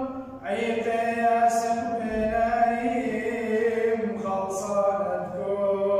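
A priest's solo male voice chanting a madrasha hymn of the Chaldean rite in long held notes, breaking off briefly near the start as if for breath.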